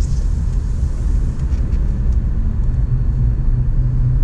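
Steady low rumble of a car driving along, heard from inside the cabin: engine and road noise.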